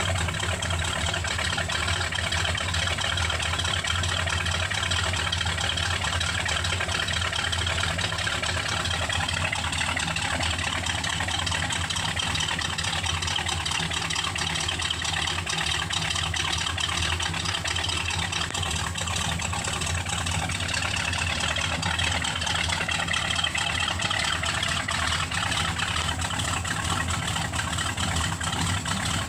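Cammed 454 big-block V8 of a 1984 Chevy C30 dually pickup idling steadily, heard from behind at the exhaust tips.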